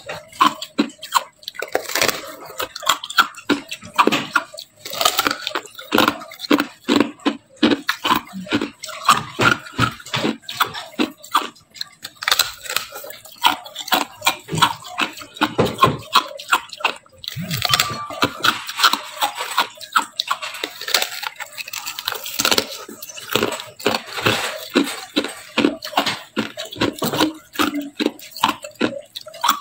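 Thin, frosty ice being bitten and crunched in the mouth, close to the microphone: a quick, uneven run of sharp crunches and crackles, several a second.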